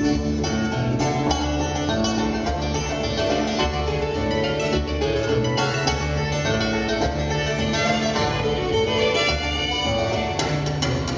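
Bluegrass band playing an instrumental passage with the fiddle prominent over mandolin, five-string banjo, acoustic guitar and upright bass.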